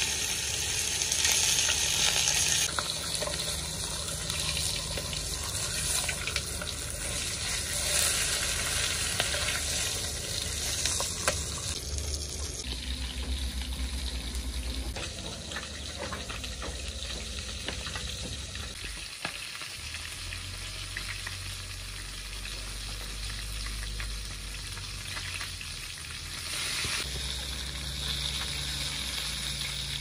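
Fish frying in hot oil in a pan over a wood fire, a steady sizzling hiss. It is loudest in the first couple of seconds, eases after about twelve seconds, and grows louder again near the end as the fish are turned.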